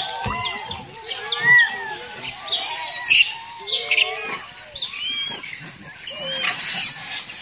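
Rhesus macaques feeding on maize cobs: dry corn husks crackling and tearing in sharp bursts, over an overlapping chatter of short rising-and-falling chirping calls.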